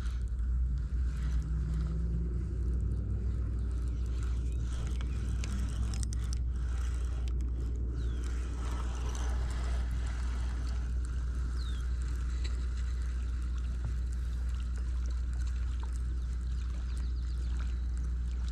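Spinning reel being cranked steadily to retrieve a lure, a soft continuous whir with a few faint clicks, over a steady low rumble.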